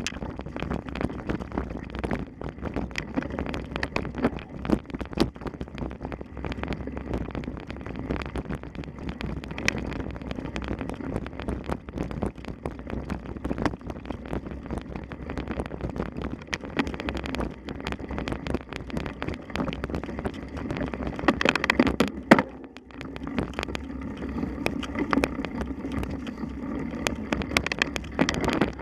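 Bicycle riding over rough ground with constant rattling and knocking and wind noise on the microphone, with a louder jolt about 22 seconds in.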